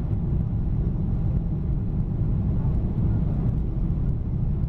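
Boeing 777-300 cabin noise on approach: a steady low rumble of the engines and the airflow, heard from inside the cabin.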